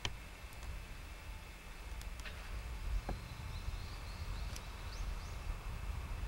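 Outdoor freight-yard ambience: a steady low rumble with a few scattered sharp clicks and some faint short chirps about four to five seconds in.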